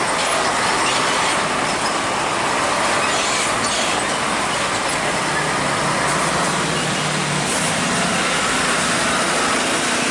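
Large box truck driving past at close range: a steady mix of engine and tyre noise over surrounding road traffic.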